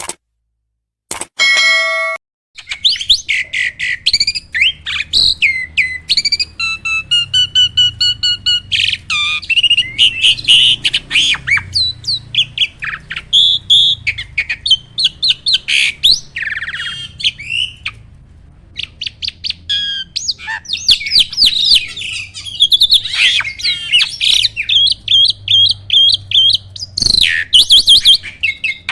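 Jalak (starling) singing in full 'gacor' song: a fast, loud, unbroken run of chirps, whistles and harsh rattling notes, starting a few seconds in, with a short lull about two-thirds of the way through. A faint low hum runs underneath.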